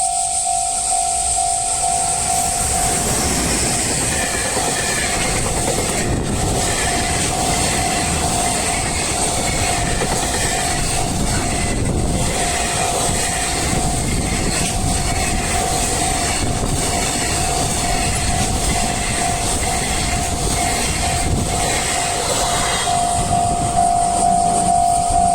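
Level-crossing warning bell ringing steadily while a long freight train hauled by an EF210 electric locomotive passes for about twenty seconds, rumbling, with repeated clacks of wheels over rail joints. The train noise drops away about 23 seconds in, leaving the crossing bell.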